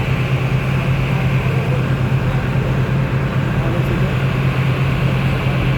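Engine of a river ferry launch running steadily under way, a constant low drone.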